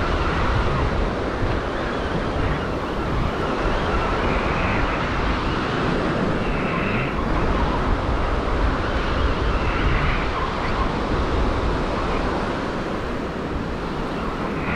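Surf washing in with wind buffeting the microphone: a steady rushing noise with a heavy low rumble.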